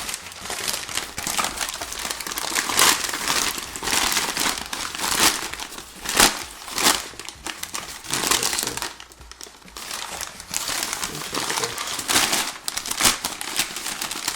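Newspaper packing crumpling and rustling as it is handled and pulled out of a parcel, in irregular crackly bursts with a short lull about nine seconds in.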